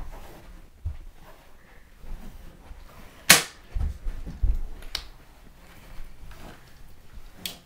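A single sharp crack a little over three seconds in, the loudest sound, followed by several dull thumps and scuffling as a person drops to the floor in a staged fight.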